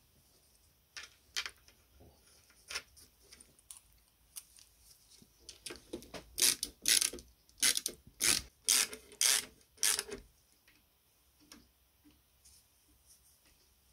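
Ratchet wrench tightening a bolt on an antique seed planter's metal frame: a run of about nine short ratcheting strokes between about six and ten seconds in, with scattered light clicks and taps of metal parts before it.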